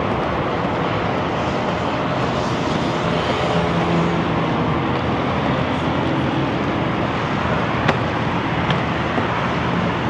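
Steady rush of heavy highway traffic passing below, with a faint hum of engines and one short sharp click about eight seconds in.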